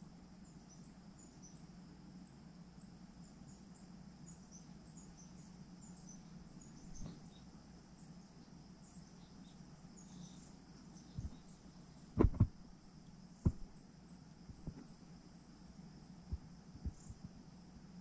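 Insects chirping in a steady high trill with quick repeated chirps, over a low steady hum. A few short dull knocks break in, the loudest a pair about twelve seconds in and another a second later.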